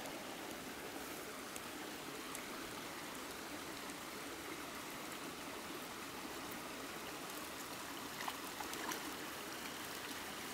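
Stream flowing steadily, with a few faint clicks near the end.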